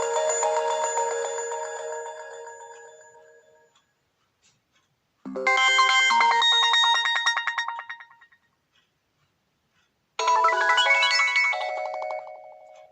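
HTC One M8 ringtone playing: short chiming melodic phrases of quick repeated notes. One fades out in the first few seconds, another starts about five seconds in, and a third about ten seconds in, each dying away.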